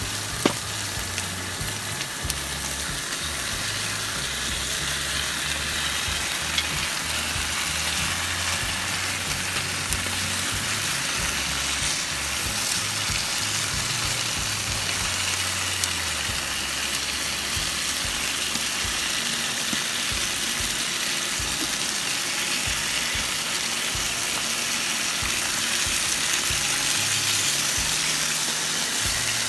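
Minute steaks and sliced onions sizzling steadily in a frying pan and on a griddle on a camp stove, with a few sharp clicks of metal tongs against the pan.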